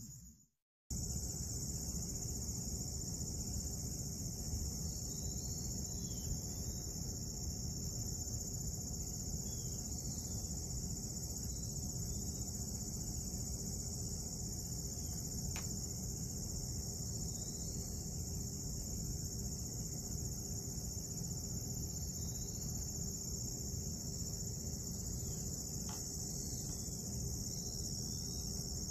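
Steady chorus of crickets, starting about a second in, with a low rumble underneath and two faint clicks.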